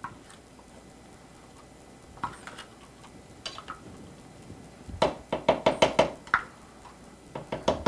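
A spatula and measuring cup knocking against a mixing bowl as yogurt is scraped out. There is a single knock after about two seconds and a couple more a second later, then a quick run of about nine taps about five seconds in, and a few more near the end.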